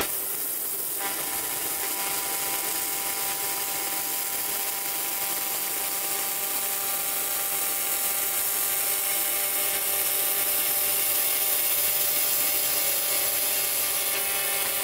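Handheld laser welder running a continuous weld on stainless steel with a 200 Hz beam wobble: a steady buzzing whine over a hiss, starting about a second in. At this wobble speed the beam moves too fast to fully fuse the joint.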